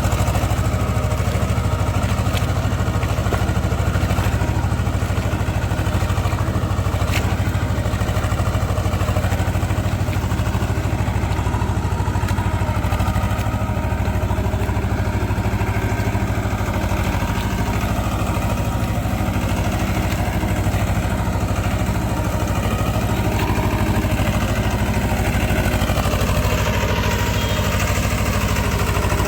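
Swaraj tractor's diesel engine running steadily.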